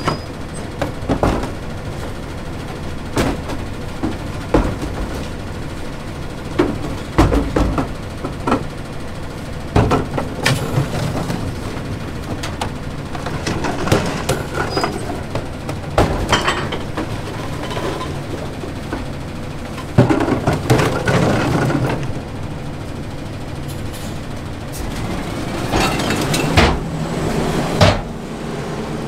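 Autocar ACX McNeilus rear-loader garbage truck running steadily, with repeated bangs and clatters of recyclables being tipped into the rear hopper.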